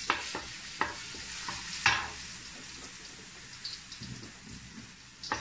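Pounded garlic sizzling in hot oil in a wok, stirred with a wooden spatula that knocks against the pan a few times, the loudest knock about two seconds in.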